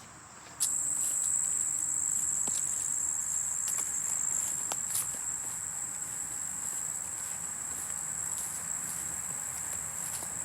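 An insect trilling, a steady high-pitched buzz that starts suddenly about half a second in and keeps going, with faint scattered clicks of steps.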